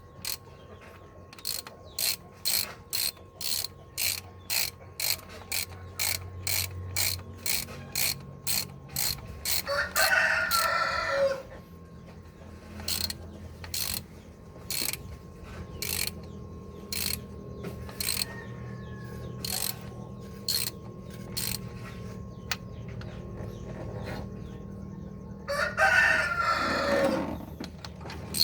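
Ratchet wrench clicking in short, regular strokes, about two a second. A rooster crows twice, once about ten seconds in and again near the end; the crows are the loudest sounds.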